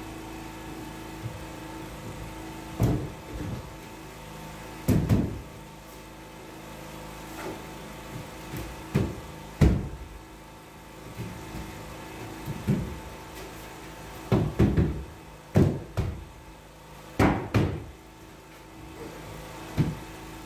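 Irregular wooden knocks and thumps as a large OSB sheet is shifted and pushed into place against a wall, over a steady hum.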